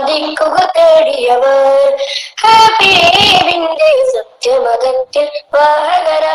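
A child singing a Malayalam song: long, held notes that waver in pitch, sung in phrases with short breaths between them.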